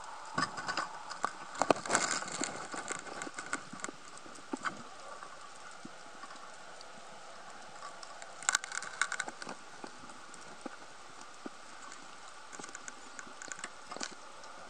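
Underwater clicks and knocks picked up through a camera housing as a speargun and spear shaft strike reef rock while a speared dog snapper is worked out of a hole. They come in clusters, loudest about a second and a half in, again around eight and a half seconds and near the end, over a faint steady hiss.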